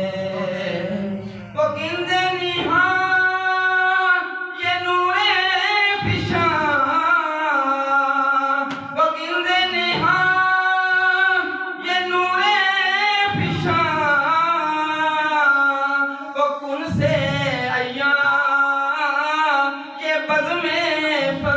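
A man singing an Urdu naat unaccompanied, in long held, ornamented notes whose pitch wavers and bends, pausing briefly for breath every few seconds.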